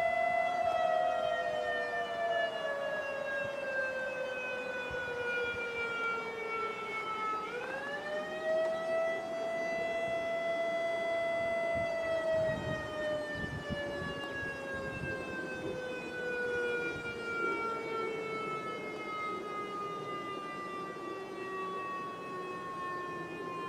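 Warning siren wailing: the pitch falls slowly for about seven seconds, sweeps back up quickly, holds for a few seconds, then falls slowly again.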